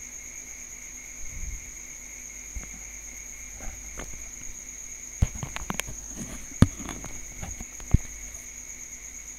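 Scattered sharp clicks and short knocks, typical of computer mouse clicks at a desk, the loudest two in the second half. Under them runs a steady high-pitched whine.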